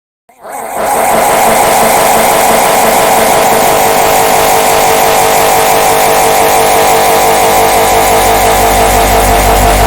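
The red bird laughing meme sound, layered many times over so that the copies merge into a loud, dense, steady drone. It starts abruptly about a third of a second in, and a low rumble builds near the end.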